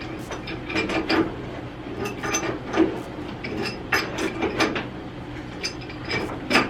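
Irregular ratcheting clicks and short metal-on-metal scrapes from hand tools working on steam boiler piping, in uneven bursts, the sharpest one near the end.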